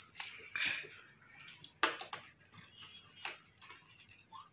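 Scattered clicks and knocks of a laptop being handled, its lid and body pushed about by a child's hands, with one sharp click about two seconds in.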